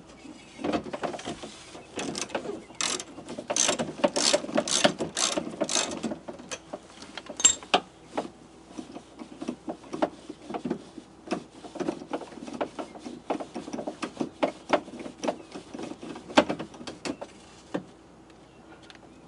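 Hand socket ratchet clicking in quick runs as it works loose a nut holding the exterior door handle. The clicks are strongest and most even about three to six seconds in, come in shorter bursts after that, and stop a couple of seconds before the end.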